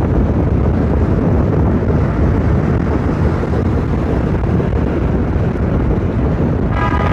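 Wind buffeting the microphone and road noise from a moving car: a steady, loud, low rumble. A brief pitched tone cuts in just at the end.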